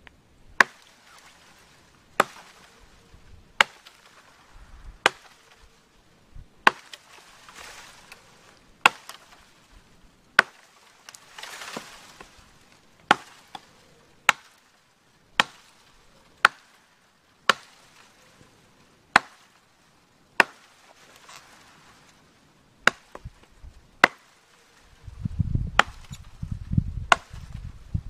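A Battle Horse Knives Chris Caine survival tool, a heavy chopping blade, chopping into a downed sapling: about twenty sharp, cracking blows, roughly one every second and a half, each biting deep into the wood. A low rumble comes in near the end.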